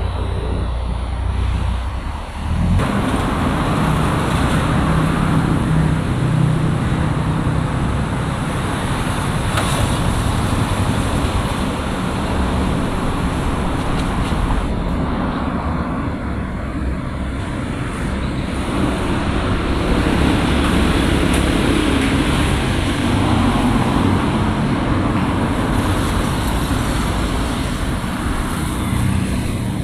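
Road traffic on a busy city street: steady noise of passing cars' engines and tyres, rising suddenly about two and a half seconds in.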